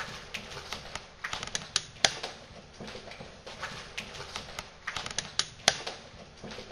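Irregular sharp clicks and taps, a few a second and uneven in strength, over a steady hiss.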